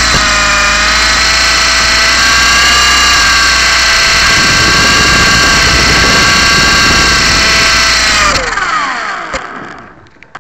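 Blade 120SR micro RC helicopter's electric motor and rotor whining steadily at a high pitch, then falling in pitch and dying away about eight seconds in as the motor spools down.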